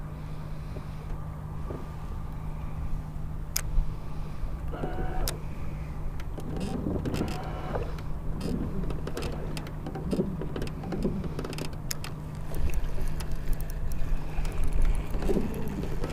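Wind and water noise on a small fishing boat under a steady low hum, with a couple of sharp clicks about three and a half and five seconds in, and more knocks and clatter in the second half.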